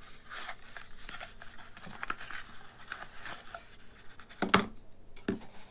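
Unboxing handling noise: cardboard packaging rustling and scraping with small clicks as a power cord is lifted out of its compartment in the box, and a sharper knock about four and a half seconds in and again about a second later.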